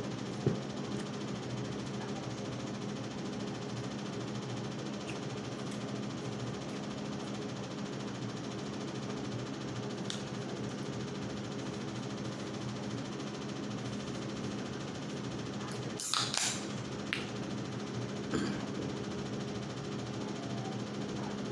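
Steady low hum of room background noise, with a few faint clicks and handling knocks. A brief, louder noise comes about three-quarters of the way through.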